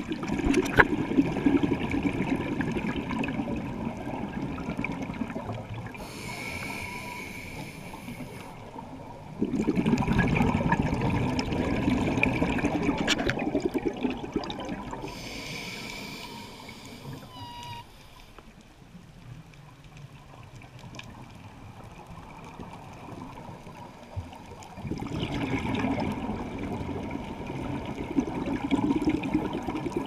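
Scuba regulator breathing underwater: a slow cycle of short hissing inhalations through the regulator, each followed by several seconds of rushing, bubbling exhaled air. Three long exhalations, with two hissing inhalations between them.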